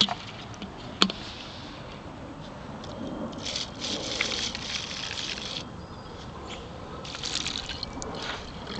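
Vinegar being poured into a water bottle, the liquid gushing and trickling in two spells. A sharp click comes about a second in.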